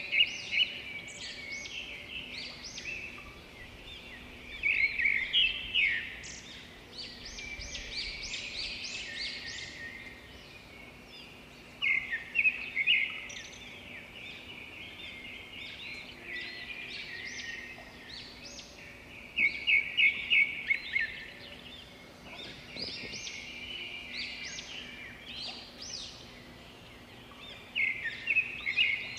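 Small birds chirping, with a string of quick high chirps throughout and louder rapid runs every several seconds. A faint steady low hum lies underneath.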